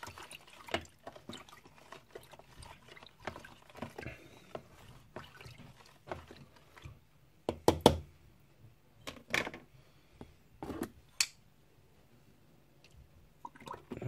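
A fork stirring salt into vinegar in a plastic tub, with liquid swishing and small clicks and scrapes against the tub. About halfway through come a few sharp knocks, the loudest of the sounds.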